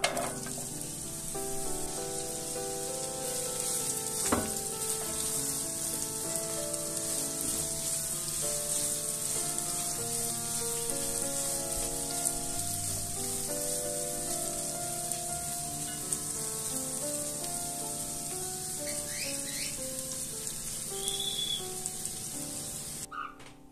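Sliced onion sizzling as it fries in melted butter and oil, starting abruptly as the onions drop into the hot pan and then running steadily while they are stirred. One sharp knock comes about four seconds in, and the sizzle cuts off near the end.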